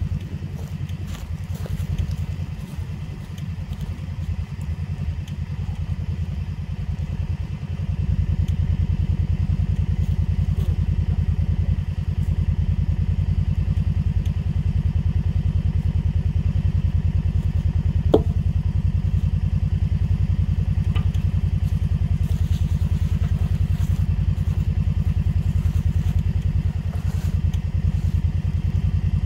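A vehicle engine running steadily at a low, even pulse, getting louder about a third of the way in, with one sharp metallic click partway through.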